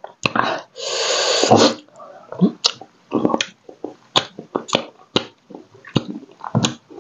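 Close-miked sounds of a person eating crab curry by hand: a long noisy slurp about a second in, then a string of short wet smacks and clicks from chewing and sucking.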